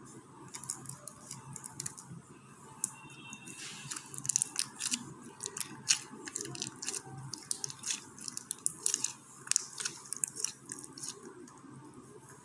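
Boba slime, slime full of small beads, being squished and worked, giving irregular sharp crackling clicks and pops that come thickest in the middle.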